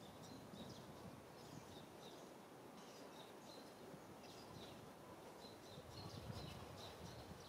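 Near-silent outdoor ambience with faint, short high chirps of small birds repeating several times a second, over a low rumble.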